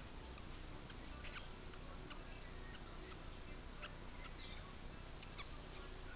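Baby parrot chick giving faint, short, high squeaks, irregularly spaced over a steady hiss.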